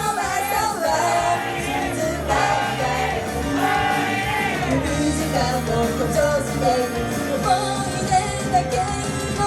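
Japanese idol group singing live over a pop-rock backing track.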